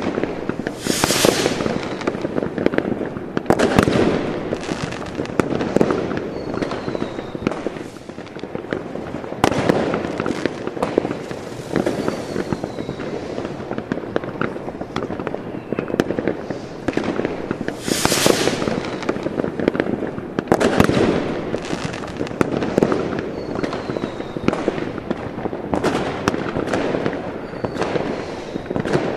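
Fireworks and firecrackers going off without a break: dense crackling with sharp bangs, a couple of long hissing bursts, and faint short whistles.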